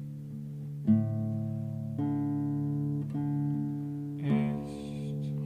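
Nylon-string classical guitar: single notes or chords plucked about once a second, each left ringing on under the next. Near the end comes a brief hissy sound over the ringing strings.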